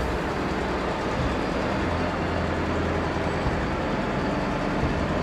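Steady vehicle driving noise: an even engine-and-road rumble that holds constant.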